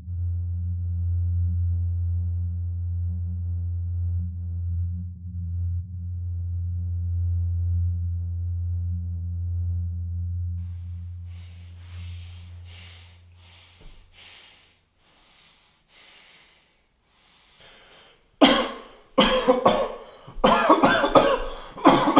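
A low, steady droning tone from the score that fades out a little past halfway. It is followed by faint breathy sounds, then a man coughing hard in harsh, irregular fits over the last few seconds.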